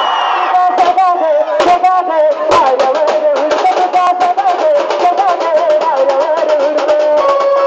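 Music: a wavering, ornamented melody line over rapid, dense percussion strokes.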